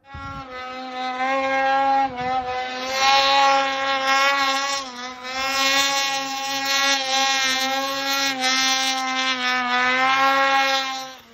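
Mountain snowmobile's two-stroke engine held at high revs as it climbs a steep chute in deep snow, the pitch steady but dipping briefly a few times.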